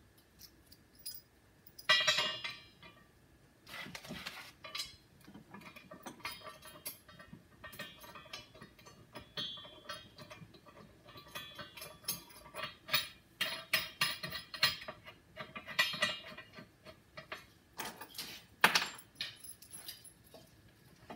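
Loose steel nuts, bolts and washers clinking and rattling as they are handled, with intermittent knocks of the steel frame parts of a Dake tabletop hydraulic press against each other and the bench; the loudest knocks come about 2 s, 4 s and just before 19 s in.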